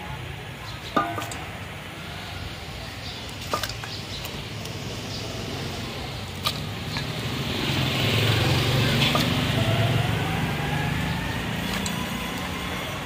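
Metal ladle scooping potato curry from a large karahi into a metal pot, with sharp clinks of the ladle against the pot rims, the loudest about a second in with a short ring. A motor vehicle passes on the street, swelling in the middle and rising in pitch.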